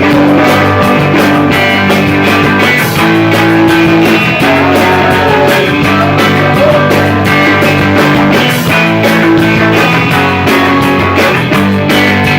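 Live rock band playing loudly, guitars over drums.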